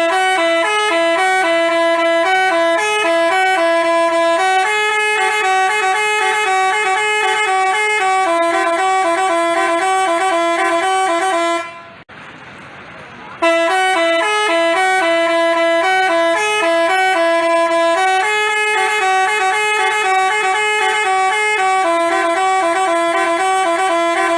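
Telolet basuri multi-tone bus horn playing a tooting melody of short, stepping notes. It stops about halfway through, then plays the same tune again.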